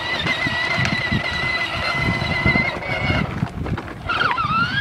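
A children's battery-powered ride-on ATV's electric motor whines steadily as its plastic wheels rumble over asphalt. The whine cuts out a little under three seconds in, then dips and winds back up in pitch near the end as the motor starts again.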